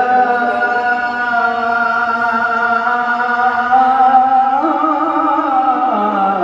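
A male muezzin's voice calling the adhan, drawn out in one long melismatic phrase of held notes that steps up in pitch about halfway through and falls again near the end.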